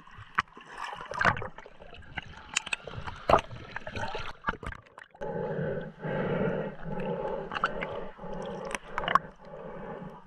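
Water sloshing and gurgling around a snorkeller, with scattered clicks and knocks; about five seconds in it turns to a steadier, pulsing, muffled rushing.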